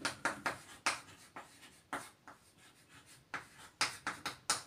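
Chalk writing on a chalkboard: a run of short scratching strokes, with a pause of about a second in the middle.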